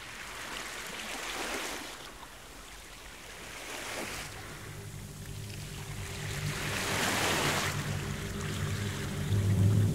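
Water rushing and splashing in a moving boat's wake, swelling and fading in waves. A low steady hum joins it about four seconds in and grows louder toward the end.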